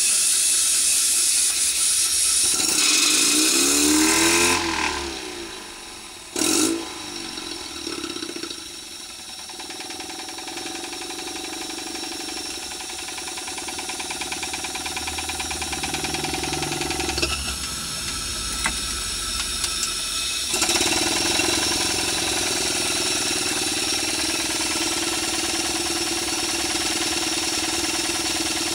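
Gas-fired 1-inch-scale Minnie live-steam traction engine running after a restart: loud steam hissing for the first few seconds, then the fast rattling beat of the engine and its motion work. The beat drops away briefly, builds again, and steps up louder about twenty seconds in.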